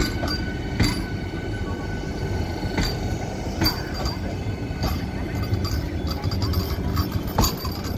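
Vande Bharat Express electric trainset passing close by: a steady low rumble of wheels on the track with a steady high whine, broken by half a dozen sharp clanks and clicks at irregular moments.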